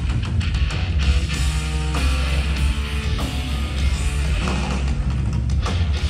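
Live heavy rock band playing an instrumental stretch: guitars, bass and drums with a heavy low end, taken from an audience recording.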